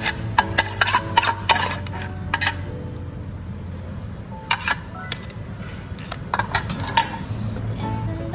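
Metal spoon clinking and scraping against a steel bowl and an aluminium Mestin mess tin as chopped pork is spooned into the tin, in quick runs of sharp clicks near the start and again about halfway through.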